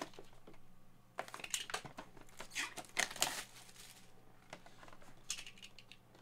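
Hands handling a cardboard box and a plastic graded-card slab: a series of short scrapes and rustles, busiest from about one to three and a half seconds in, with a few more near the end.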